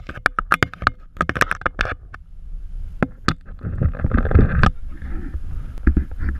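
Blue crab clicking and tapping right at the camera on wooden pier boards. A run of sharp clicks comes in the first two seconds and a few more after, then a scraping rustle about four seconds in, with low rumbling noise near the end.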